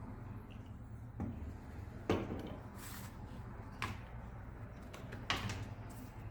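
Knocks and clicks of hard parts being handled while a hand router is taken apart, about five sharp ones with the loudest about two seconds in, and a short scrape near three seconds in.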